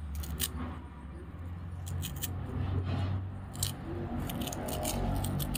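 Rough jute twine being unwound by hand from a sutli bomb firecracker: scattered scratchy rustles and small clicks of the fibrous string, over a steady low rumble.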